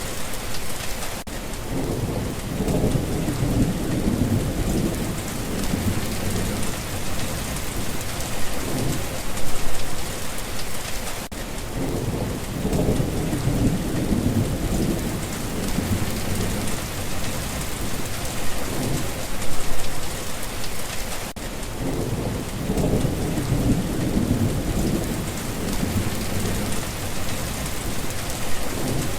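Steady heavy rain hissing, with low rolls of thunder rumbling up three times, about ten seconds apart. The same stretch of storm recording appears to repeat on a loop.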